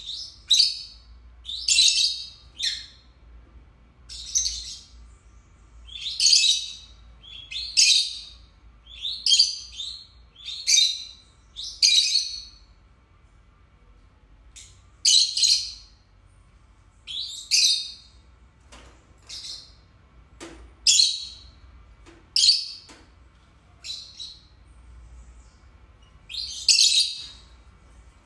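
Peach-faced lovebirds calling: a long series of short, shrill chirps and shrieks, about one a second, with a couple of brief pauses.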